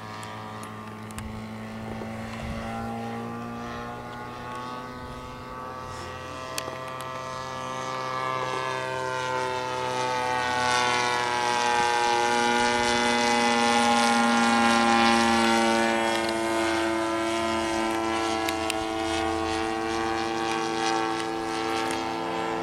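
Radio-controlled model airplane's engine and propeller droning steadily high overhead. It grows louder toward the middle as the plane passes nearest, then eases off slightly.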